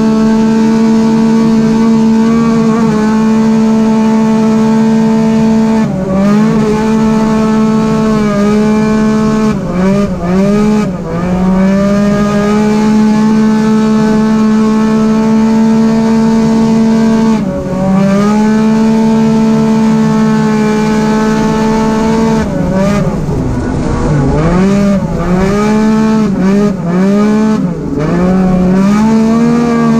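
Arctic Cat Wildcat XX race UTV engine at high revs, heard from inside the cockpit. It holds a steady high pitch for long stretches, then several times drops and climbs back as the throttle is lifted and reapplied, most often in the last third.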